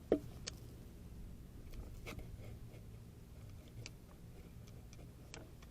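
Faint scattered clicks and light handling noises of small parts being moved by hand, with one sharper click just after the start.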